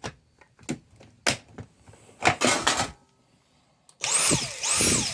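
Handling clicks, then a Dyson V7 handheld vacuum's motor, running on a DeWalt 20 V battery through an adapter, switched on in two short spurts near the end: its whine rises and falls twice, then winds down.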